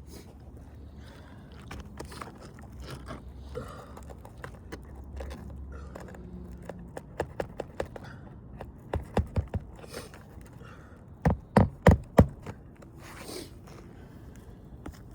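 Hammer driving roofing nails into asphalt shingles: a few light taps, then quick runs of strikes, the loudest run of four or five near the end. Shingles scrape and rustle in between.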